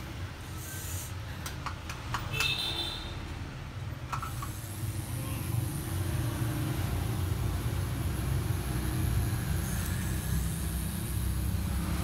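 A steady low mechanical hum, with a few light clicks between about one and two and a half seconds in.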